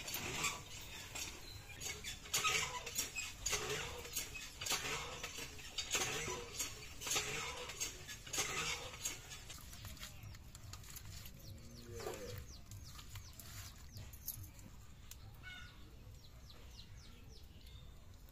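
Hands kneading and rubbing pieces of rohu fish with salt and turmeric in a steel bowl: wet squelching strokes about twice a second for the first nine seconds or so. After that it goes quieter, with faint bird chirps.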